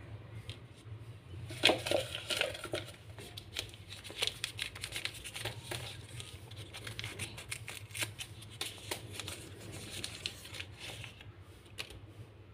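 Folded paper packets being crinkled and unfolded by hand: a burst of rustling about two seconds in, then scattered crinkles and light clicks that die away near the end.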